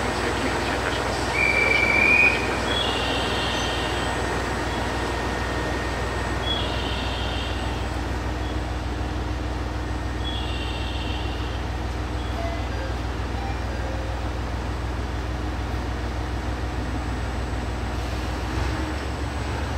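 Echigo Tokimeki Railway diesel railcar running at a standstill at the platform, a steady low engine hum. Near the end the engine note changes as the train departs. Short high chirps come every few seconds over it.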